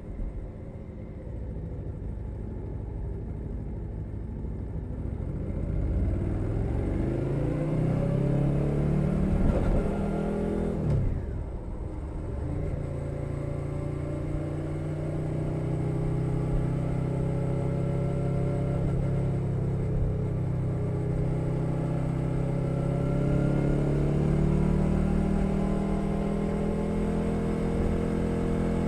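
2021 Suzuki SV650's V-twin engine through a Leo Vince Nero exhaust, heard from under the seat while riding. The engine note climbs under acceleration, drops sharply at a gear change about ten seconds in, climbs again, then holds a steady cruise.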